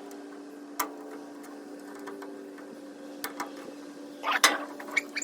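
Sharp clicks and scraping as metal U-clips are pried open and pushed onto the plastic grille, the loudest click about four and a half seconds in, over a steady background hum.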